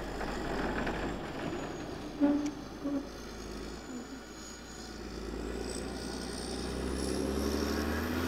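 Vehicles going by on a road in a blizzard over a steady rush of wind-blown noise. Two short pitched beeps come a couple of seconds in, and near the end an engine rises in pitch as a vehicle accelerates past.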